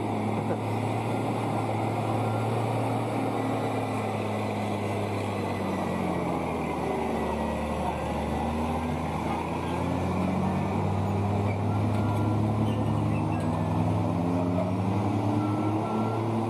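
Diesel engine of a tractor truck hauling an empty lowboy trailer up a steep hairpin, running steadily under load. Its pitch sags around the middle and climbs again towards the end as the revs change through the turn.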